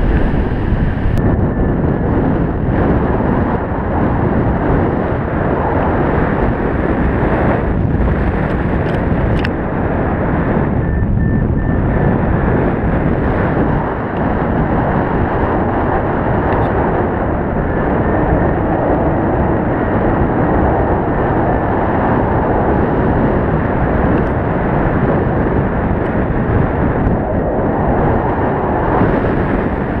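Airflow rushing over an action camera's microphone during paragliding flight: a loud, steady low rumble of wind noise.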